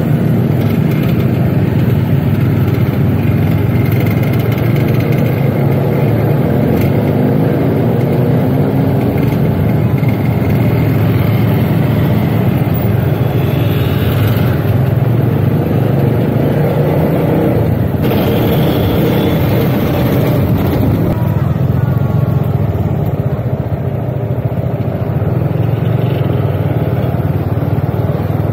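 Motorcycle engine running steadily through a ride, its low drone continuous.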